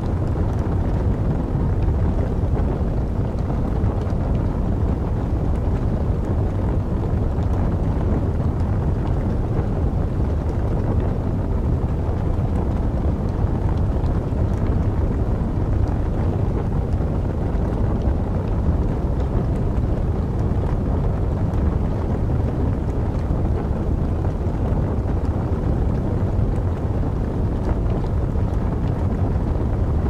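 A steady low wind, as for a snowstorm, with faint scattered crackles of burning wood logs.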